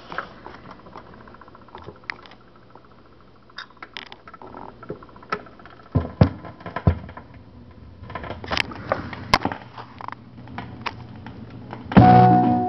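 Console stereo record changer playing a 45 rpm single: a low hum and scattered clicks, then a sharp click about six seconds in as the stylus meets the record, followed by pops and crackle from the vinyl. Music with guitar starts from the speakers near the end.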